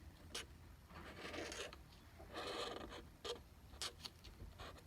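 Pen strokes scratching across paper: two longer strokes about one and two and a half seconds in, between short sharp taps.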